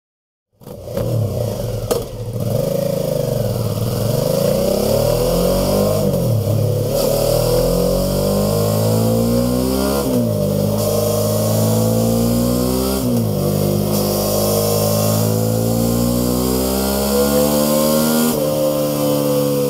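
Suzuki V-Strom 650's V-twin engine running through its stock exhaust, revved repeatedly: the revs rise sharply and fall back several times between steadier stretches near idle.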